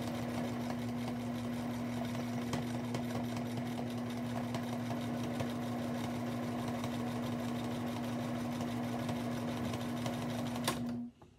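Electric sewing machine running at a steady speed, stitching a straight seam through quilt fabric: a constant motor hum with fast, even needle ticking. It stops suddenly near the end.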